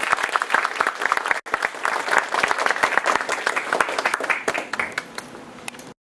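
Audience applauding, a dense patter of many hands clapping that drops away briefly about a second and a half in, grows quieter near the end and then cuts off suddenly.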